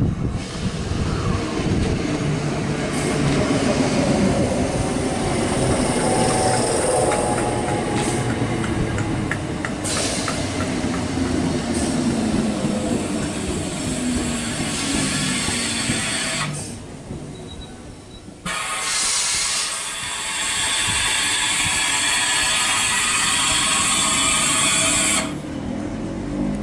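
ScotRail electric multiple unit running in along the platform, its motor whine slowly falling in pitch as it slows, with wheel clicks over the rail joints. A strong hiss fills the second half and stops shortly before the end.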